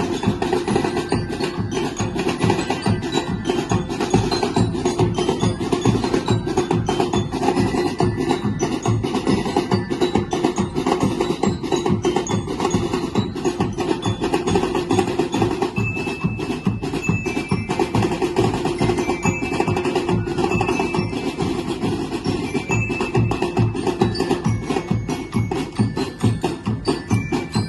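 Music with a fast, busy percussion beat and ringing bell-like pitched notes over it.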